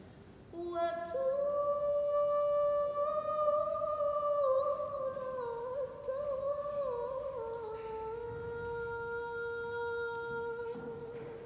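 A woman singing solo and unaccompanied: a slow line of long held notes that step downward, with a wavering ornament about halfway through. The last note fades away near the end.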